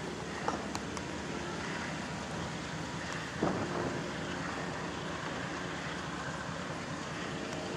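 Norfolk Southern ES44DC diesel locomotive running steadily as the train rolls slowly past, its engine heard as a low hum under a noisy bed. Two short knocks stand out, one about half a second in and a louder one about three and a half seconds in.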